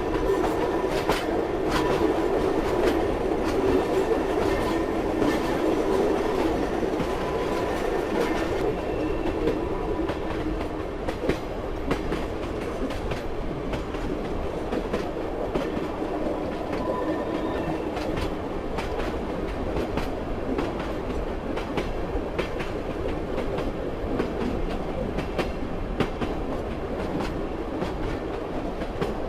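A moving train's steady rumble, with the scattered knocking of its wheels over the rail joints (clickety-clack) and a faint hum.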